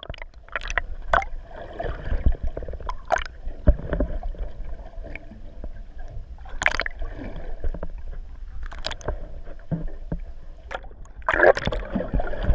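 Muffled underwater water noise heard from a camera held just below a boat's hull: a steady low rumble with scattered sharp knocks and sloshing. It grows louder near the end.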